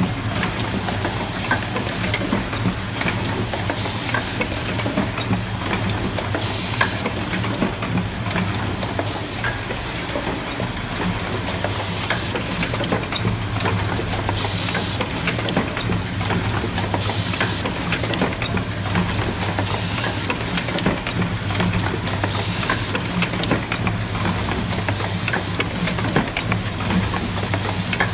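Automatic LED filament welding machine running through its cycle: a steady low hum, a short hiss repeating about every two and a half to three seconds, and light clicks in between.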